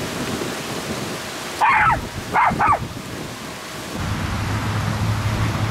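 A dog barks three times in quick succession, short sharp barks about two seconds in, over a steady rush of wind noise on the microphone. From about four seconds in a steady low hum joins.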